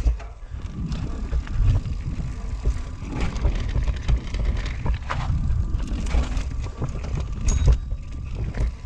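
Norco Range C7.2 full-suspension mountain bike ridden fast downhill: tyres rolling and skidding over dirt and loose rock, with a steady low rumble and frequent small knocks and rattles from the bike over the rough ground.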